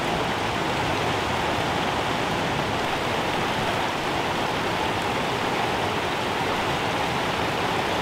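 Creek water pouring over a large beaver dam, a steady waterfall rush.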